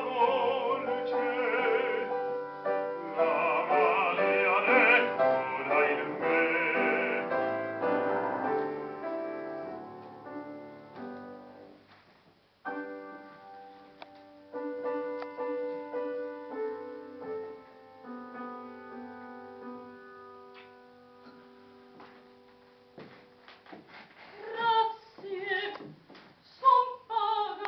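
Live chamber-opera music: a soprano singing with vibrato over busy piano accompaniment, which thins and fades out. After a brief pause about twelve seconds in, the piano plays slow sustained notes that die away. Near the end come a few short vocal sounds that slide in pitch.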